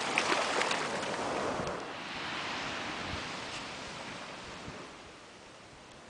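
Surf washing up the beach, a hiss of fizzing foam with crackles. It is loudest in the first second or two and dies down about five seconds in.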